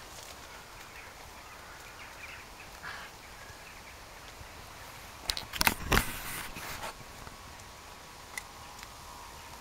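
Quiet outdoor background on a farm lane with faint bird calls early on. A little past halfway, a brief cluster of loud knocks and rubbing lasts about a second and a half.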